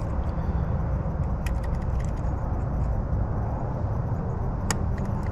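Lock pick and tension wrench working the pins of a Defiant doorknob lock's spool-pinned cylinder, giving a few faint, scattered metallic clicks over a steady low rumble.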